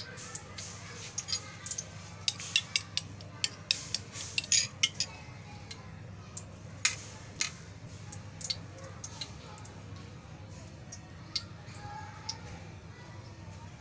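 Metal spoon clinking and scraping against a ceramic bowl while beaten eggs are stirred and scraped out. The taps come quickly and irregularly for the first several seconds, then only now and then.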